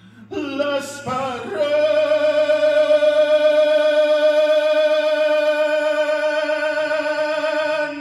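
A solo singer's voice rises through a short phrase, then holds one long note with a wavering vibrato for about six seconds before letting it go near the end.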